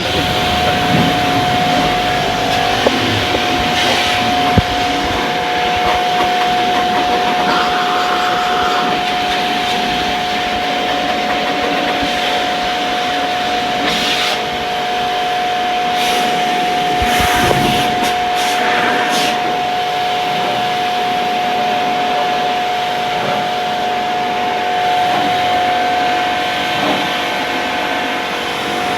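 Electric pressure washer running, its motor giving a steady high whine over a continuous hiss of water spray, as a window air conditioner is washed down.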